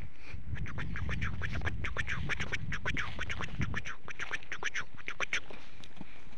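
A rapid series of short animal calls, several a second, running for about five seconds, with a low rumble under the first part.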